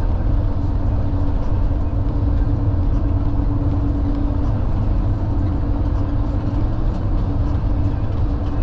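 Steady road and engine rumble inside the patient compartment of a moving ambulance, with a steady hum that fades about five seconds in and returns near the end.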